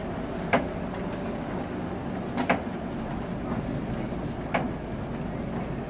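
Cabin noise inside a Scania K360IB coach on the move: the engine and road make a steady low rumble. A sharp click comes about every two seconds, the loudest sound.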